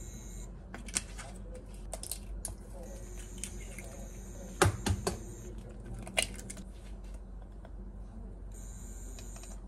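Kitchen prep knocks and clicks: an egg rapped against the rim of a frying pan, with the loudest sharp knocks about halfway through and lighter taps of utensils and bowls scattered around them.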